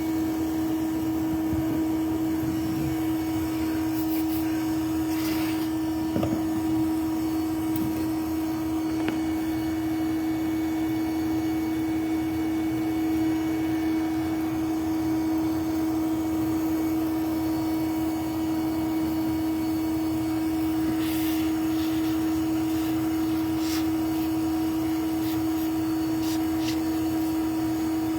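Bee vacuum's motor running steadily with a constant hum, as bees are being removed from a hive. A few short hissing noises come through, about five seconds in and again around twenty-one seconds.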